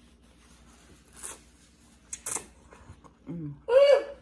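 Noodles slurped twice. Then a short low hum and a loud, high-pitched wordless vocal sound from a diner mid-mouthful, rising and falling in pitch near the end.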